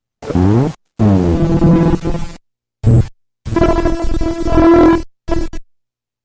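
Circuit-bent LeapFrog Phonics Pond toy spitting out glitched electronic sound in about five short bursts, each cutting off dead into silence. The pitch swoops and bends in the early bursts and settles into a steadier buzzing tone in the later ones, with the last burst stopping about five and a half seconds in.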